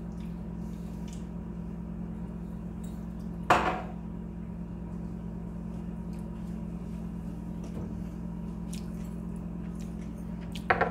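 Kitchen handling sounds over a steady low hum: one hard clack of kitchenware about a third of the way in, and a quick double click near the end.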